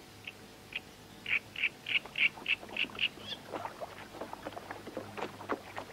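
A bird calling in a run of about ten short, clear notes that come slightly faster and rise at the end. After it comes irregular light splashing of water.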